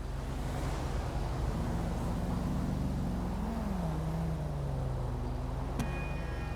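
Twin-turbo LS7 V8 engine running at low revs, its pitch rising gently and then falling back. A sharp click comes near the end.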